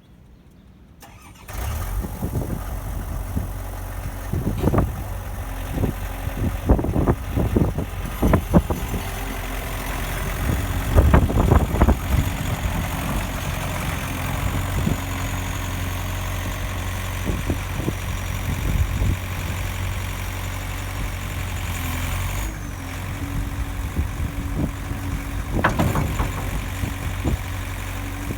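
Gehl CTL55 compact track loader's diesel engine starting about a second and a half in, then running steadily. Short clunks and knocks come and go over the running engine.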